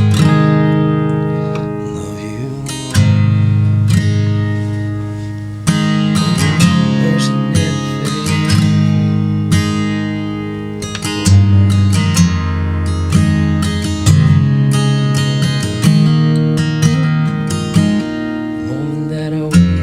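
Martin D-18V dreadnought acoustic guitar (mahogany back and sides, spruce top) playing chords. A fresh strum comes every few seconds, and each chord rings out and slowly fades before the next.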